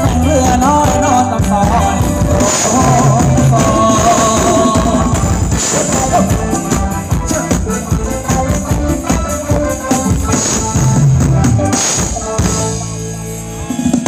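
Live band playing Thai ramwong dance music loud over a PA, a melody line over drum kit and tambourine-like percussion. The music drops back in level shortly before the end.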